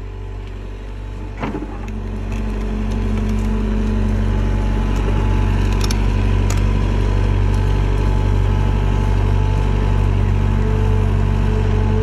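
SDLG crawler excavator's diesel engine working under load as the machine tracks up a steep bank. The engine grows louder over the first few seconds, then runs steadily.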